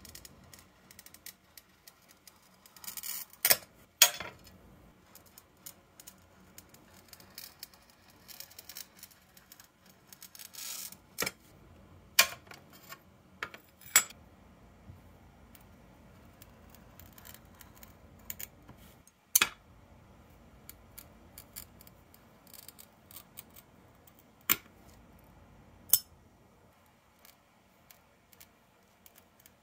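A hand-held glass cutter scoring sheet stained glass with a scratchy hiss, in a couple of short strokes, and sharp snaps and clicks as the scored pieces are broken off and set down on a plastic waffle-grid cutting surface.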